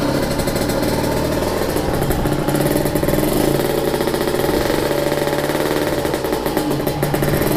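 Kawasaki Ninja two-stroke motorcycle engine running steadily, warming up after a cold start, heard through its aftermarket exhaust. Its crankshaft is said to be worn and loose.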